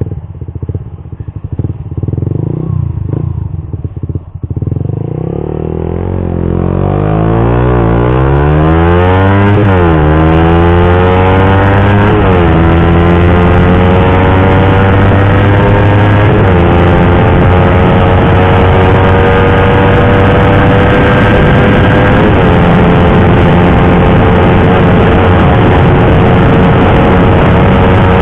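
Suzuki GSX-R150's single-cylinder engine through an R9 Misano aftermarket racing exhaust, accelerating at full throttle: uneven and low at first, then climbing in pitch and dropping sharply at each of four upshifts, before holding steady at high revs near the end.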